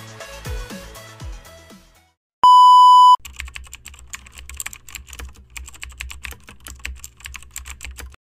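Background music fading out, then a loud steady electronic beep lasting under a second. After it come about five seconds of rapid computer-keyboard typing clicks over a low hum, which stop abruptly.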